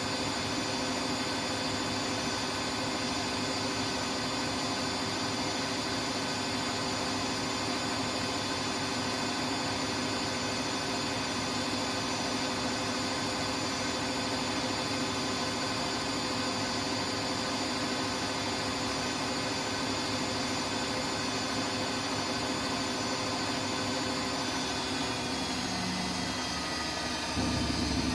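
Siemens Siwamat iQ 716 washing machine spinning: a steady motor whine and rush with several fixed tones. Near the end the higher tones start to fall in pitch and a low rumble sets in, slightly louder.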